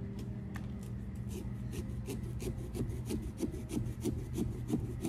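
Small serrated pumpkin-carving saw sawing through a pumpkin's rind in a quick, even run of short rasping strokes that starts about a second in.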